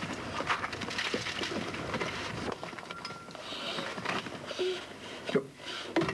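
Hand pick striking the rock face of an opal mine, irregular knocks with loose rock and earth crumbling and rattling down.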